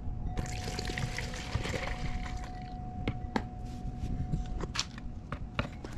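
Liquid soft top cleaner poured from a plastic bottle into a plastic measuring container, a splashing pour of about two seconds, followed by a few light knocks as the bottle is set down.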